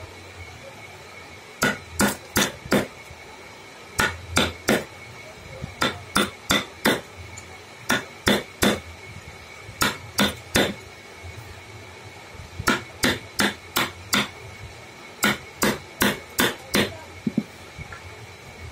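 A woodcarver's hammer striking a carving chisel into wood, in short runs of three to five sharp blows with pauses of a second or so between runs.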